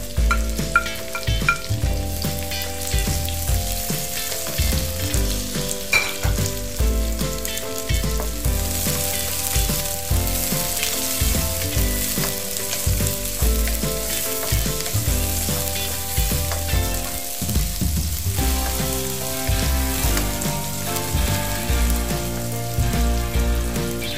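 Sliced red onions and garlic sizzling in hot oil in a wok, stirred with a wooden spoon; the sizzle grows stronger about eight seconds in.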